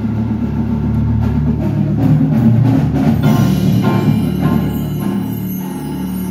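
Marching band with its percussion pit playing loudly: sustained band chords with drum and mallet-percussion hits on top, peaking in the middle.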